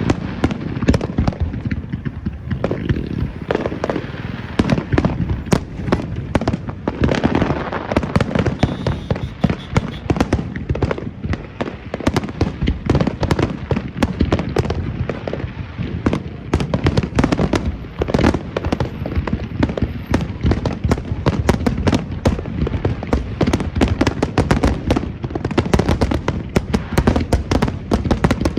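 A fireworks display, shell after shell bursting in a rapid, nearly continuous barrage of booms and crackling.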